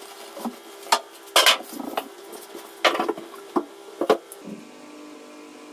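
Handling noise as the water heater's box is opened and the unit is taken out of its polystyrene packing: about half a dozen knocks and scrapes of cardboard and foam over the first four seconds. A faint steady hum runs underneath.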